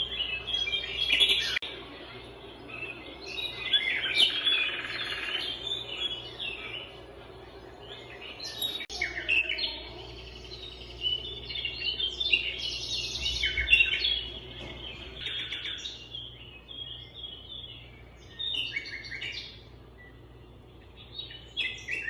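Small birds chirping and twittering, many short overlapping calls and trills with no pause.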